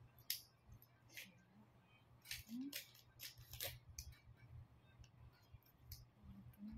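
Faint plastic clicks and rattles of a selfie stick tripod's phone clamp and legs being handled and adjusted, a dozen or so short irregular clicks.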